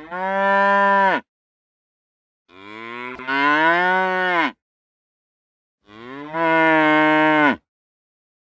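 Cow mooing three times, each moo lasting one to two seconds, with dead silence between them.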